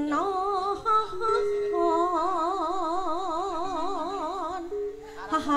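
Campursari singing: a female voice holding long sung notes with a wide, regular vibrato, about four to five wobbles a second, over steady sustained accompanying tones. The melody steps through a few short notes in the first two seconds, then holds one long wavering note until near the end.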